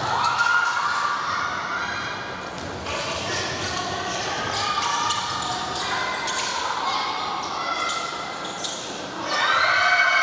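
Basketball game on a wooden gym court: the ball bouncing and players' shoes knocking and squeaking on the floor, with voices calling, all echoing in the large hall.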